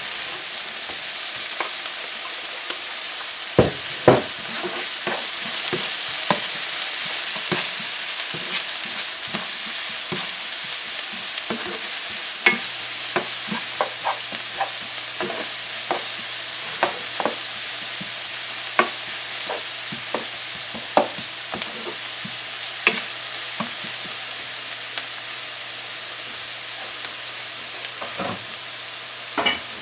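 Chopped onion, scallions, hot pepper and garlic sizzling steadily in oil in a nonstick frying pan, with a spatula tapping and scraping against the pan as they are stirred; the sharpest knocks come a few seconds in, with a run of lighter taps through the middle.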